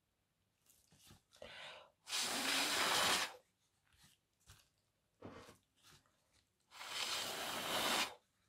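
Two long breaths of a person blowing hard onto wet acrylic paint, each a steady rush of air about a second long, the second about four seconds after the first, with faint rustling between them.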